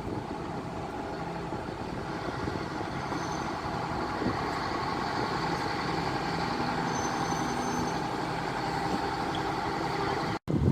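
Red Hen diesel railcar running steadily with an even engine drone. The sound drops out for an instant near the end.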